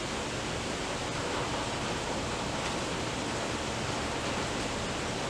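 Steady, even hiss with no distinct sounds over it.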